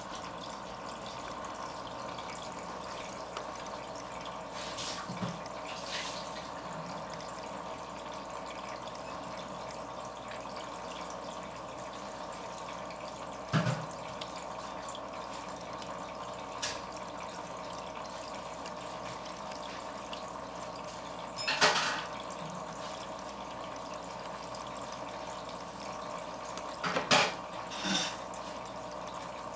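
Steady trickle of running water, with a few short, sharper sounds scattered through it, the loudest about 13 s, 22 s and 27 s in.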